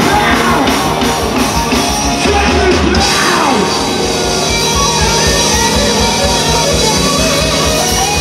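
Rock band playing with drums, bass and a man singing.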